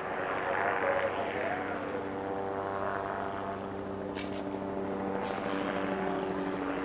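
Helicopter flying overhead, a steady drone of rotor and engine with a low hum that holds its pitch.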